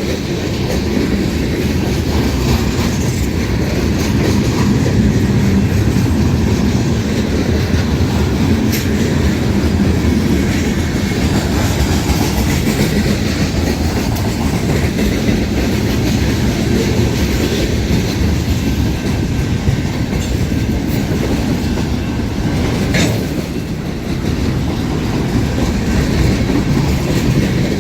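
Union Pacific mixed freight train's cars rolling past in a steady, loud rumble, with wheels clacking over the rails and a few sharp clanks.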